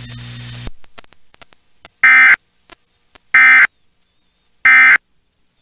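Emergency Alert System digital data tones heard over radio: three short, identical electronic bursts about a second and a quarter apart. They are the End of Message signal that closes the severe thunderstorm warning. A low steady hum fades out in the first moment.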